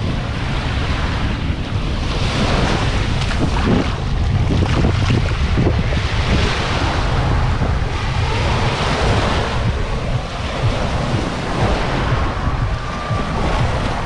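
Surf washing up on a sandy beach, swelling and easing every few seconds, with wind buffeting the microphone as a constant low rumble.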